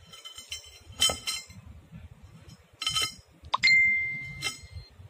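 Metal striking a steel pipe: a few sharp clinks, and one loud strike about three and a half seconds in that rings on with a clear tone, fading over about a second.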